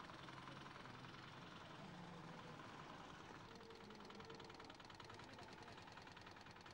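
A faint engine running steadily, with a rapid, even ticking from about halfway through.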